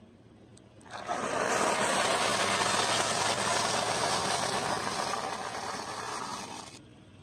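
A car tyre rolling over food and crushing it, a dense crackling and grinding that starts about a second in and stops suddenly near the end.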